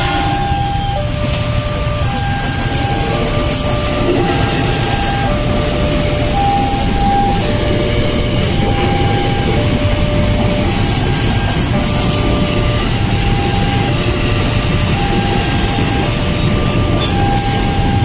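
Commuter electric train passing close by over a level crossing, its steady rumble and rail noise running on. Over it, the crossing's electronic warning bell repeats a short alternating chime of notes at different pitches, about one note a second.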